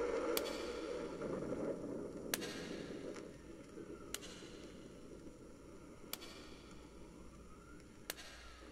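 Five sharp clicks, evenly spaced about two seconds apart, over a low rumbling noise that fades away during the first few seconds.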